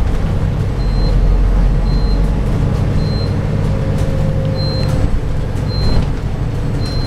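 Cabin noise of a New Routemaster hybrid double-deck bus on the move: a steady low drone from the drivetrain and road, with a short high beep repeating about once a second.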